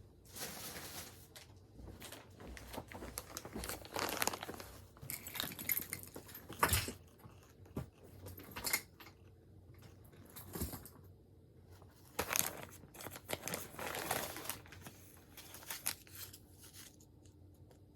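Plastic packaging crinkling and tearing in irregular bursts as it is handled and opened.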